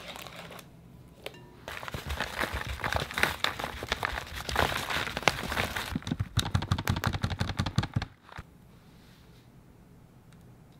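Paper flour bag crinkling and rustling as cake flour is poured and shaken out of it. Near the end it turns into a quick run of regular crinkles, then stops about eight seconds in.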